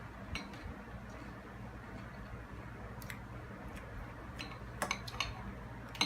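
A few sparse, faint clicks of someone eating a spoonful of crunchy fruit-ring cereal over a low steady hum, with a small cluster of clicks about five seconds in.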